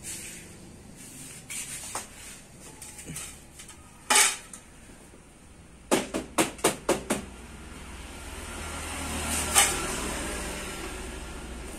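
Metal tools clinking and tapping on the steering head of a Honda Vario 150 scooter under repair. Scattered light clinks, a short louder clatter about four seconds in, then a quick run of six sharp metallic taps a couple of seconds later.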